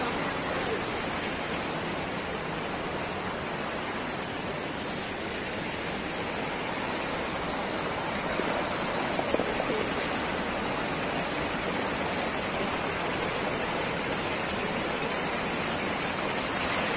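River water rushing and churning over rocks in shallow rapids below a weir, a steady, unbroken noise.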